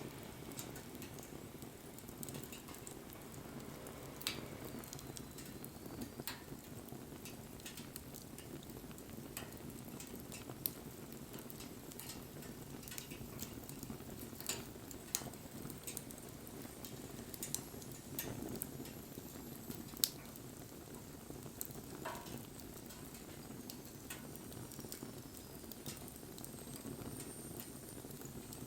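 Wood fire burning: a steady low crackle and hiss with scattered sharp pops, the loudest about twenty seconds in. A faint, thin high whistle wavers at times.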